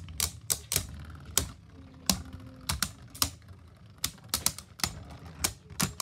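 Two Beyblade spinning tops clashing in a plastic stadium: an irregular run of sharp plastic clacks, about two or three a second, as they collide.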